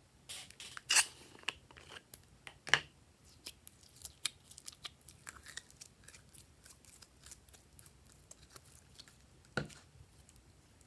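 Glossy slime squeezed out of a plastic bottle and pulled and folded by hand: a scattered run of sticky clicks and pops, the loudest about one second and three seconds in, with another sharp pop near the end.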